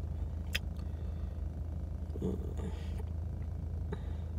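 Car engine idling while parked, heard from inside the cabin as a steady low hum. There are two small clicks, one about half a second in and one near the end.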